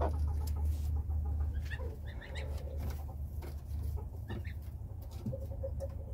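Hen clucking in a few short, scattered calls over a low steady rumble.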